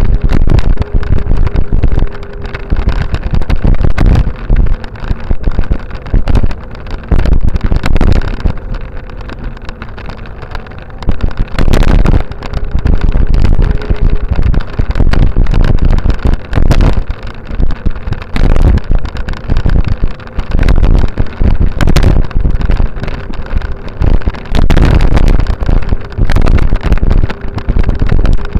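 Heavy wind buffeting on the microphone of a camera moving along a paved path: a gusty low rumble that rises and falls, broken by short knocks and rattles. A faint steady hum comes and goes.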